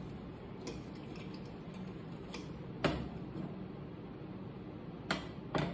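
A few light clicks and taps from a fork in a ceramic bowl and a frying pan handled on a glass-top electric stove, about five in all, the sharpest about halfway through, over quiet room noise.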